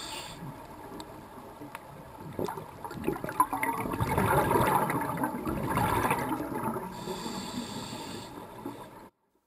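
Scuba regulator breathing heard underwater: a long exhalation of bubbles that rumbles and gurgles through the middle, then a hissing inhalation through the regulator near the end. The sound cuts off suddenly just before the end.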